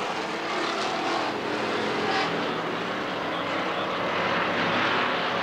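Several street stock race cars' engines running together around a short oval track, a steady mechanical drone.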